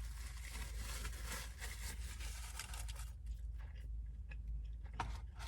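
A person chewing fast food close to the microphone. There is crunching and crinkling for the first three seconds, then quieter chewing with a few sharp clicks near the end.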